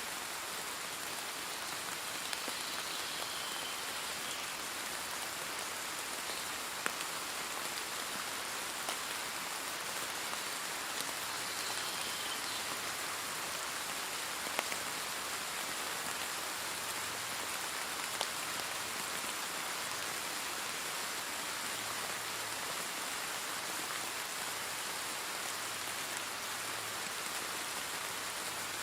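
Steady rain falling, a dense even hiss with scattered individual drops ticking on a surface.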